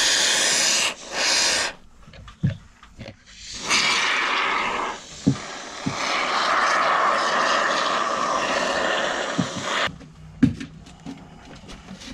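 Aerosol spray can hissing in three bursts: one to about a second in, a brief one just after, and a long one of about six seconds from the middle on. Small knocks and handling noise fill the gaps between bursts.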